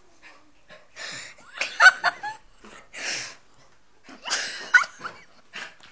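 Two bursts of laughter, about a second in and about four seconds in, while a small wet dog rolls and rubs itself on a carpet.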